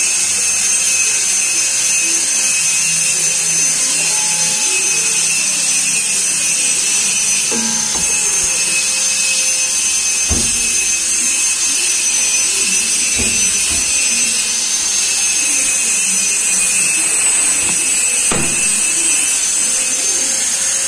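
Vapor blasting cabinet running: a steady, loud hiss of the blast gun spraying air and water-slurry onto a BSA engine cover, with a few knocks.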